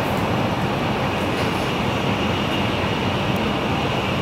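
Steady running noise of an N700 series Shinkansen at speed, heard from inside the passenger cabin, with a faint steady high tone over the rush.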